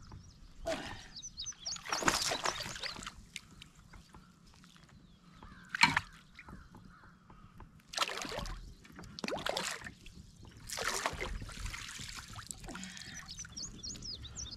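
Hooked fish splashing and thrashing at the water's surface beside a kayak as it is brought into the landing net: several separate bursts of splashing, with one sharp knock about six seconds in.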